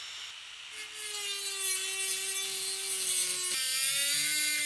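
Small electric rotary tool with a thin abrasive cutoff disc grinding into a hardened steel rod: a steady motor whine under a hissing grind that starts about a second in. The pitch sags slightly as the disc bites and shifts about three and a half seconds in.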